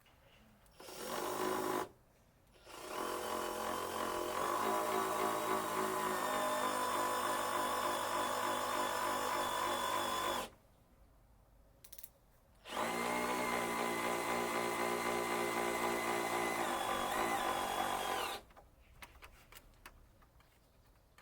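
Electric drill motor running in three bursts, a short one and then two long steady runs of several seconds each, each cutting off abruptly, as used when building a pallet-wood firewood rack.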